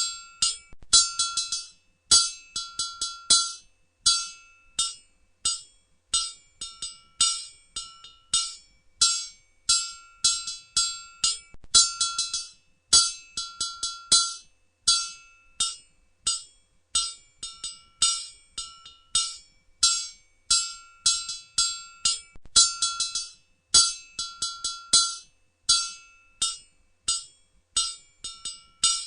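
Blacksmith's hammer striking hot metal on an anvil, in quick runs of blows separated by short pauses, each blow ringing with a clear metallic tone.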